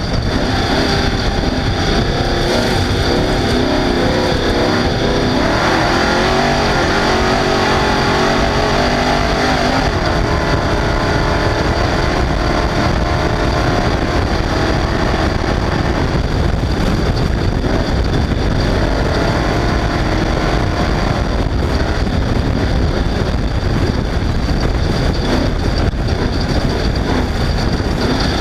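Off-road race vehicle's engine running hard under load, its pitch rising and falling with the throttle over a constant rumble of wind and rough terrain.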